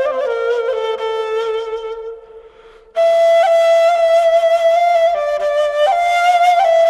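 Background music: a solo flute playing a slow melody of long held notes with small ornaments. One note fades out about two seconds in, and a new phrase starts a second later.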